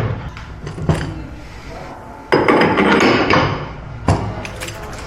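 Metal clanks and knocks as a car wheel is fitted onto a wheel balancer's shaft and centring cone: a sharp knock about a second in, then a louder clatter a little over two seconds in that fades away.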